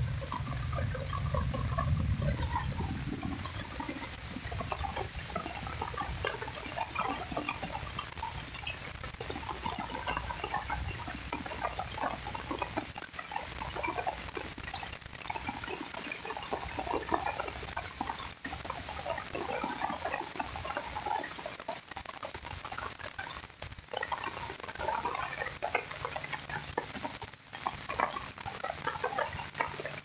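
Steady rain falling on a canal and wet vegetation, with many short, overlapping animal calls throughout and a steady high hiss. A low rumble sits under it for the first few seconds.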